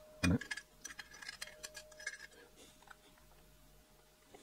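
Small metallic clicks and taps of hand-held parts and a thin tool on a Porsche transaxle's aluminium bellhousing while moly grease is dabbed onto the clutch release-fork pivot, with one louder knock just after the start. The ticks thin out after about two seconds.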